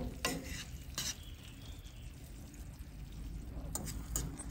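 A spoon stirring and scraping a pan of buttery cheese sauce as it cooks, with a few clinks of the spoon against the pan near the start and again near the end, over a faint sizzle.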